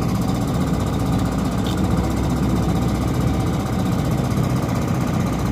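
Small excavator's diesel engine running steadily, a low even throb, as the machine works to shift a large fishing boat.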